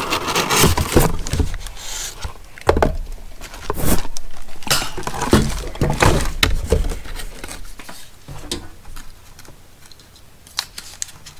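A cardboard product box being handled and unpacked: irregular rustles, scrapes and knocks as the box is tipped and the packed contents are pulled out. Busier in the first half, sparser toward the end.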